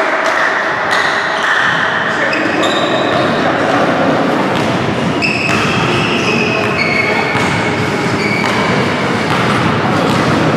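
Basketball game sounds echoing in a large gym hall: a basketball bouncing on the wooden court, voices, and a string of short high-pitched squeaks, each under a second long and at a shifting pitch.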